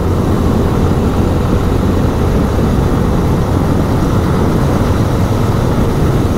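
Steady wind rush buffeting the microphone of a camera on a motorcycle at road speed, with the bike's engine and tyre noise running underneath.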